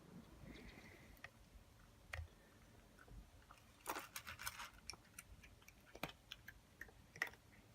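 A cat chewing crunchy food: faint, scattered crunches and clicks, with a dense flurry about four seconds in and single sharp ticks near the end.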